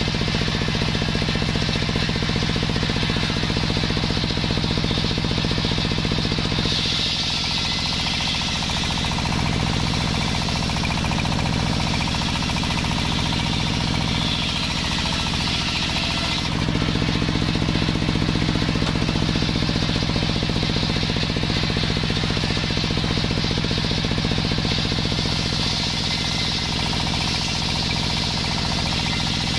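Table-mounted circular saw running steadily while its blade rips lengthwise through a sengon log. The sound turns brighter and hissier from about a quarter of the way in until just past halfway, then returns to its earlier tone.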